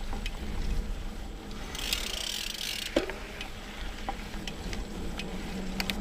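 Mountain bike on singletrack: steady rumble of tyres and wind, with the rear hub's freewheel ratchet buzzing for about a second while coasting, and scattered knocks of the bike rattling over the trail, the sharpest about three seconds in.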